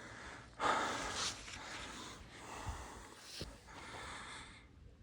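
A man breathing hard close to the microphone, with a strong exhale starting about half a second in and further breaths after it, plus two soft thumps near the middle.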